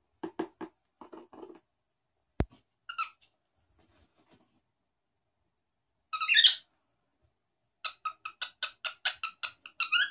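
Cockatiel vocalising: a couple of short chattering bursts, a single sharp click about two and a half seconds in, a loud call about six seconds in, then a fast run of chirping notes, about five a second, near the end.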